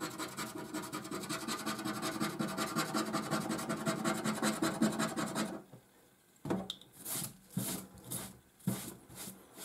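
Scratchcard's latex coating being scratched off in quick rasping strokes for about five and a half seconds. Then come a few separate short swipes as the hand brushes across the card, likely sweeping away the scratched-off flakes.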